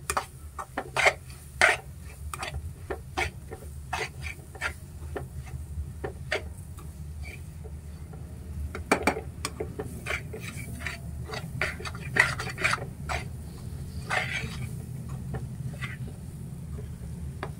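Steel spoon scraping and clinking against a metal kadai as a thick onion, tomato and spice masala is stirred and fried in oil, in irregular strokes over a steady low hum.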